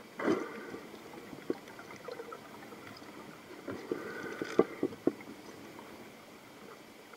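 Muffled underwater sounds picked up by a submerged camera: irregular sharp clicks and two short gurgling, bubbly spells, one just after the start and one around the middle.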